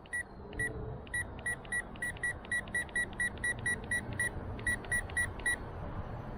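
RC transmitter beeping as its elevator trim button is pressed repeatedly to add nose-down trim. There are about twenty short, even beeps at one pitch, roughly three to four a second, with a brief pause partway through.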